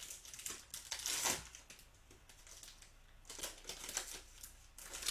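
Trading-card pack wrapper and cards being handled, crinkling and rustling in short irregular bursts, loudest about a second in.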